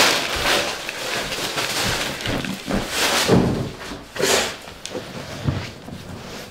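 Plastic bag rustling in several loud bursts, with a few light thuds.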